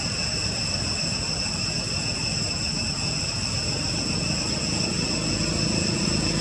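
Steady, high-pitched drone of cicadas, held on a few fixed tones, over a low continuous rumble that grows a little louder near the end.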